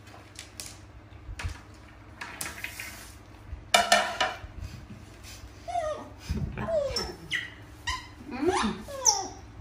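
Baby macaques calling: short cries that slide up and down in pitch, a loud one about four seconds in, then many in quick succession over the last few seconds.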